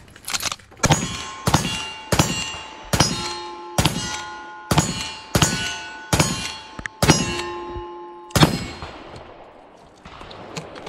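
Uberti 1873 lever-action rifle firing black-powder rounds in a quick string of about ten shots, each followed by the ring of a hit steel target. The shots stop about eight and a half seconds in, leaving only the fading ring.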